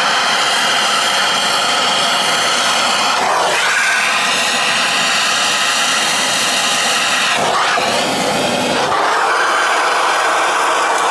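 Gas soldering torch burning with a steady, loud hiss while heating a copper pipe coupling for soldering. The hiss wavers briefly twice, a few seconds in and again about eight seconds in.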